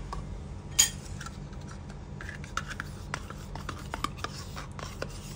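Metal spoon scraping thick yogurt out of a cup and clinking against a ceramic bowl: one sharp clink about a second in, the loudest, then a run of light taps and scrapes.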